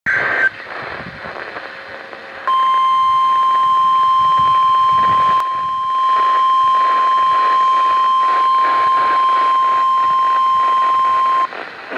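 NOAA Weather Radio warning alert: one steady, loud high tone of about 1050 Hz that starts about two and a half seconds in and lasts about nine seconds over radio hiss. It opens with a half-second burst of data tones, which marks an incoming severe thunderstorm warning.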